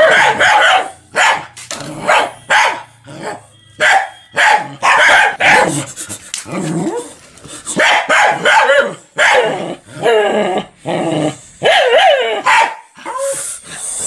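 Small white puppy barking repeatedly, short loud barks about one a second, with a few longer barks that waver in pitch about two-thirds of the way through.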